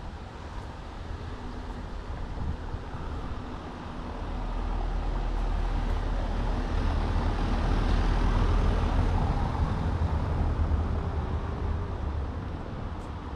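A motor vehicle passing by: a low rumble and rush that builds, is loudest about two-thirds of the way in, then fades.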